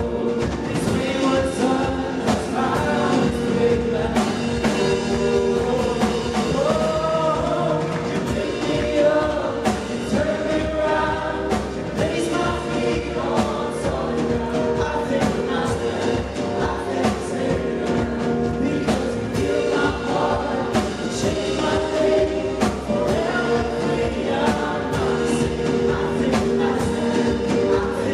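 A praise-and-worship band playing a gospel song, with several voices singing together over steady drum hits.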